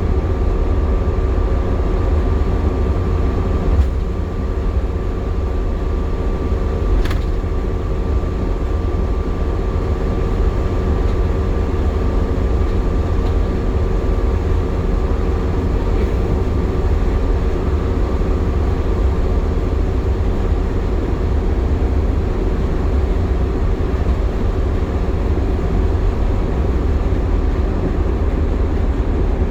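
Optare Solo bus heard from on board while under way: a steady low engine and road rumble under a constant hoover-like whine, the sound of its cooling fan running hard in warm conditions. A sharp click comes about seven seconds in.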